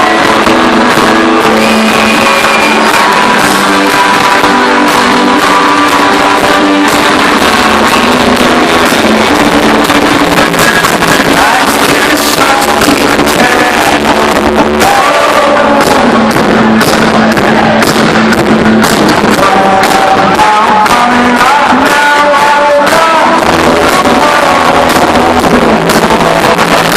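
Live indie rock band playing loud, with a lead singer's melody carried over guitars and drums.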